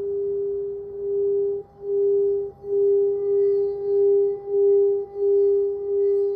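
Crystal singing bowl sounding a sustained, steady pure tone. The tone pulses in loudness about one and a half times a second and swells louder over the few seconds.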